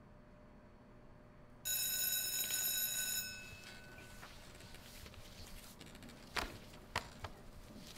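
School bell ringing, starting suddenly and holding for about a second and a half before fading: the signal that class is over. Afterwards come rustling and a few sharp knocks as students get up from their desks.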